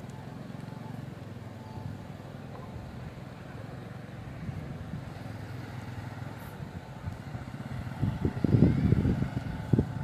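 Small motorcycle engine running steadily as a motorcycle-sidecar passes. About eight seconds in, louder irregular low rumbling sets in.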